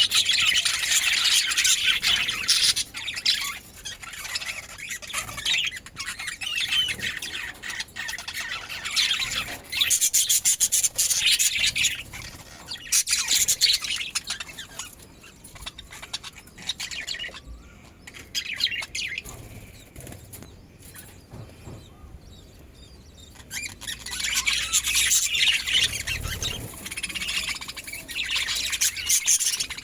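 Budgerigars chattering and chirping in quick, busy stretches, dropping to a quieter lull midway and picking up again near the end.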